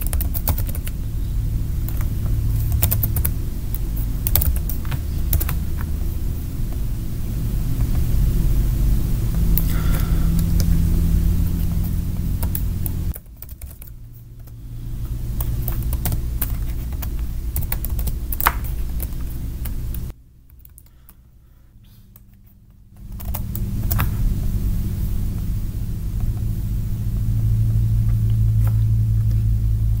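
Typing on a computer keyboard: scattered, irregular key clicks over a steady low hum. The hum drops out briefly about halfway through and again for a few seconds about two-thirds of the way in.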